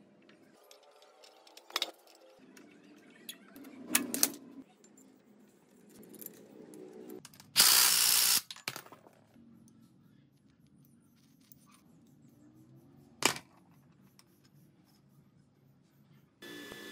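Tools and metal parts being handled: scattered clinks and knocks, with one loud rushing burst lasting under a second about eight seconds in. A steady running noise with a few held tones starts just before the end.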